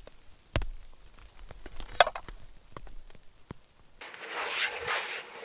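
Scattered handling clicks and knocks, with a heavier knock under a second in and a sharp click about two seconds in. About four seconds in the sound changes abruptly to bursts of crunchy rustling noise.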